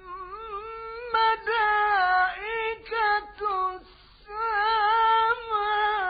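A high voice singing an Arabic religious chant (tawshih) in long, richly ornamented phrases with a wavering held tone. The voice pauses briefly about four seconds in, then sings one more wavering phrase that stops near the end.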